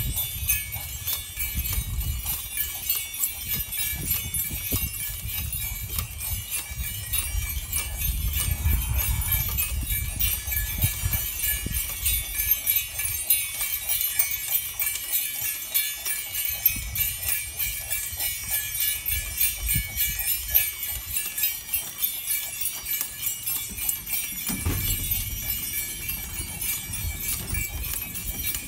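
Bells on a St Bernard's harness collar jingling steadily in quick rhythm as the dog trots pulling a sulky cart, over a low rumble of the cart rolling on pavement.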